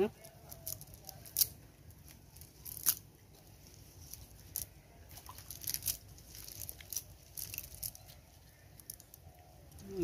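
Fine-mesh fishing net being handled and shaken out over wet mud, giving scattered light crackles and rustles, with a couple of sharper ones about one and a half and three seconds in.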